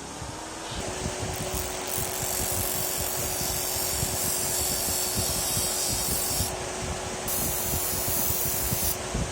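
A power tool's motor running at a steady pitch from about a second in, with rough grinding or sanding noise over it and a high hiss that comes and goes several times.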